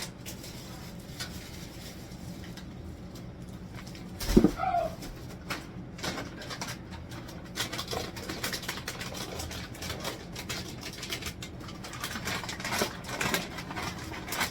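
Clicks, knocks and rustling from groceries and packaging being handled and put away, with one loud knock about four seconds in.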